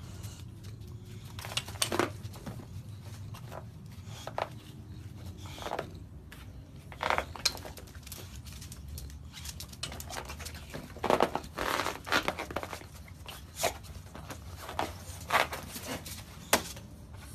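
English bulldogs scuffling on raised fabric pet cots: scattered scratches, rustles and knocks of paws and bodies on the cot fabric and frames, coming thickest about ten to thirteen seconds in, over a low steady hum.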